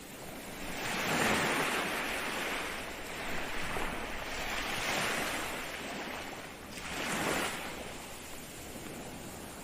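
Ocean waves breaking and washing on the shore, in several swells that each rise and fade over a second or two.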